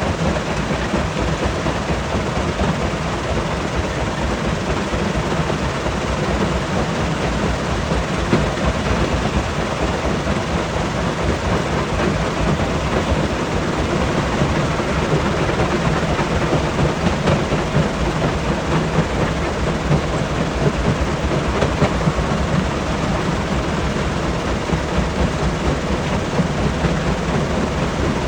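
Stone crusher running and crushing rock: a steady heavy rumble with dense clattering.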